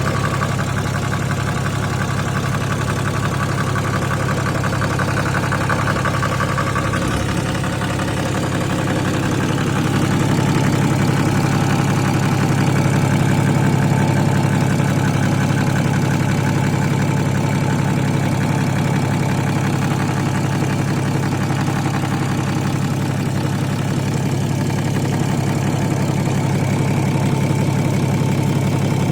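BMW N57D30 3.0-litre inline-six turbodiesel idling, with a knock from the back of the engine near the automatic transmission that is the owner's concern. It runs steadily, a little louder from about ten seconds in.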